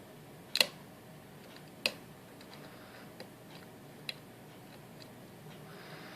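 Small sharp metallic clicks of a lock pick and tension tool working the pins inside an Assa Guideline lock cylinder: a loud double click about half a second in, another near two seconds, then a few fainter ticks.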